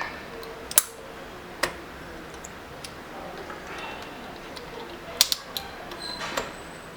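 Mechanical keyboard with clicky blue switches: a few scattered sharp single clicks, with a quick cluster of three about five seconds in.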